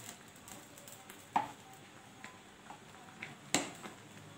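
Metal spatula stirring noodles in a kadai of hot water, knocking against the pan several times; two knocks, about a second and a half in and again near the end, are louder than the rest.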